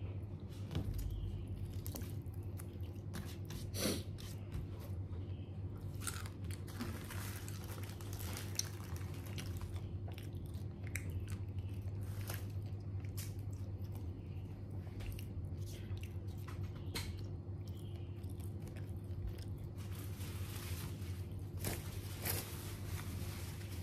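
Close-up chewing and biting of crispy fried chicken, with many irregular crunchy crackles. A steady low hum runs underneath.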